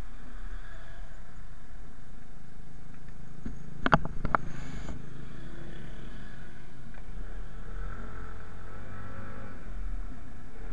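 Motor scooter running along the road at a steady speed, its engine and the wind and road noise making a steady rumble, with a quick cluster of sharp knocks about four seconds in.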